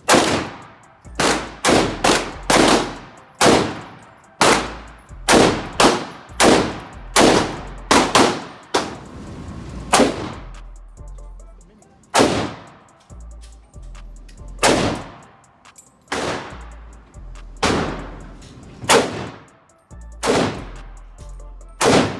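Firearm shooting at a range: about twenty single shots fired at an uneven pace, sometimes several in quick succession and sometimes a second or two apart, each shot followed by a ringing echo.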